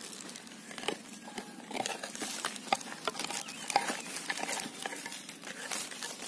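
Small wooden-handled hand hoe chopping and scraping into soil and roots: an irregular series of sharp strikes, with loose earth pattering down.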